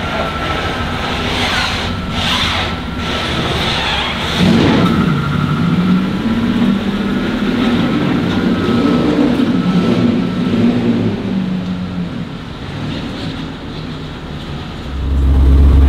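A car driving past, its engine note rising and falling, then a loud low rumble setting in near the end.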